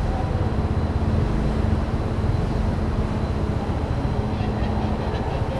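Steady low rumble of an underground parking garage, with a constant hum running underneath.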